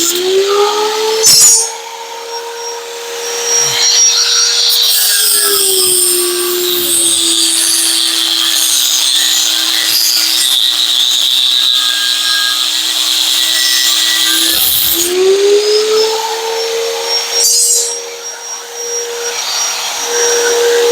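Harbor Freight angle grinder with a cut-off wheel slicing through steel bar: the motor spins up free, then its pitch sags and holds low under load for about ten seconds of cutting, with a high grinding hiss, and rises again as the wheel cuts through. There is a metal clank about a second in and another near the end as the bar is handled.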